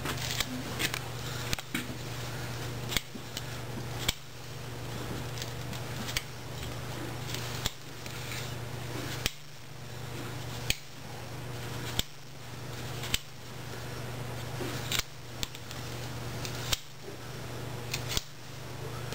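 Farrier's hand tools working a horse's hoof: a sharp click or snap about every second and a half, over a steady low hum.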